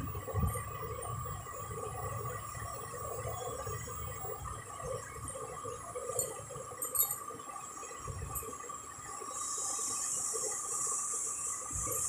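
Faint television sound playing in the room: a low murmur with a steady tone running under it. A steady high hiss comes in about nine seconds in.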